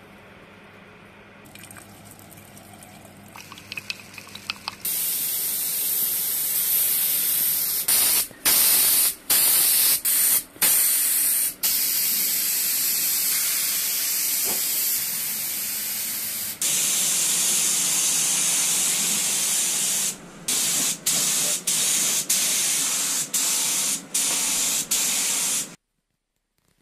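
Gravity-feed compressed-air spray gun spraying paint: a loud, steady hiss of air, broken by short gaps as the trigger is let go and pulled again. It starts about five seconds in, after a few light clicks, and cuts off abruptly near the end.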